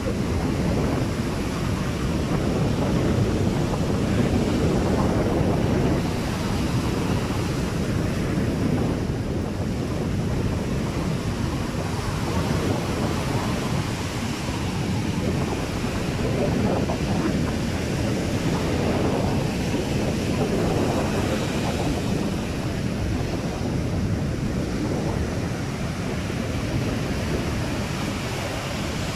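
Ocean surf washing onto a beach, a steady rushing noise that swells and eases every few seconds, with wind rumbling on the microphone.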